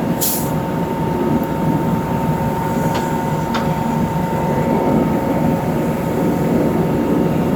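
Heavy diesel truck engine running steadily with a low rumble and a faint steady whine, with a short hiss just after the start and two light clicks around three seconds in.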